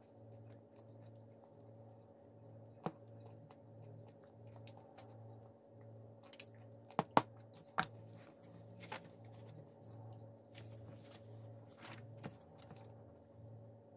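A metal spoon clinking against a glass bowl of yogurt a few times, in sharp clicks, the loudest ones a little past halfway. Under it runs a low hum that throbs a little more than once a second.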